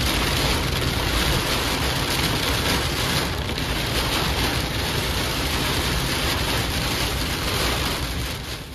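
Heavy rain pouring steadily in a storm, dropping off sharply near the end.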